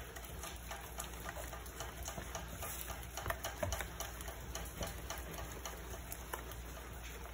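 Silicone spatula stirring a thick peanut and condensed-milk paste in a metal saucepan: faint, irregular soft clicks and scrapes of the spatula against the pan, a few louder ones about halfway through.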